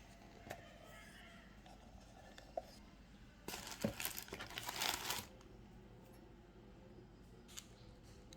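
Packaging being crinkled and torn open in a loud rustling burst lasting nearly two seconds in the middle, with a few light clicks and taps of handling before and after.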